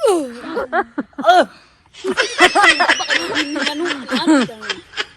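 A voice gives a short cry that falls in pitch. About two seconds in, people break into laughter that lasts nearly three seconds.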